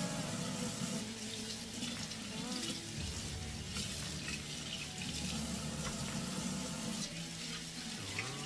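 Kitchen faucet running into a sink while raw chicken leg quarters are rinsed under it, the water stream splashing off the meat. It is a steady flow of water throughout.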